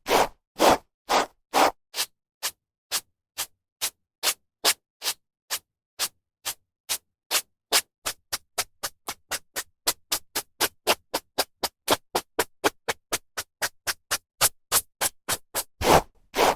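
A hairbrush drawn through hair in a long run of short, quick swishing strokes. The strokes speed up to about four a second in the second half, and a few longer, fuller strokes fall at the start and near the end.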